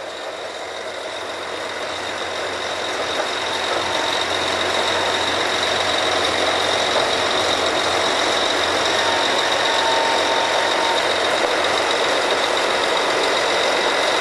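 Drilling rig machinery and engines running hard, a steady mechanical din with a thin high whine in it. It grows louder over the first few seconds, then holds steady.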